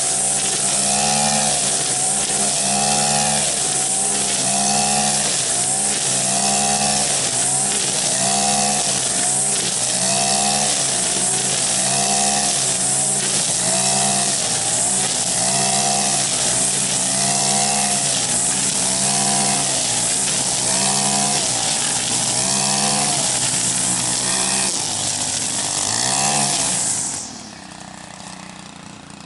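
Gas-powered string trimmer running at high throttle, its engine pitch dipping and recovering about once a second as each sweep cuts into thick tall grass. The engine cuts off suddenly near the end.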